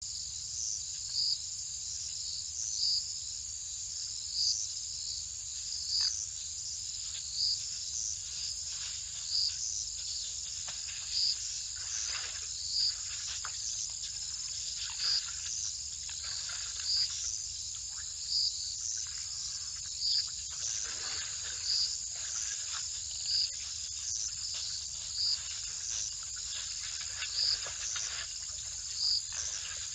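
Night insect chorus of crickets: a steady high trill with a louder short chirp repeating about every second and a half. Faint, irregular noises from elephants drinking at a water trough come and go.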